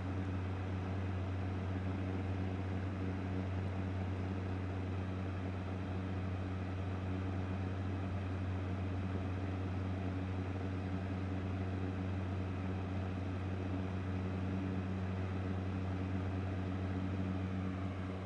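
A steady, low mechanical drone with a deep hum, unchanging throughout and easing off slightly at the very end.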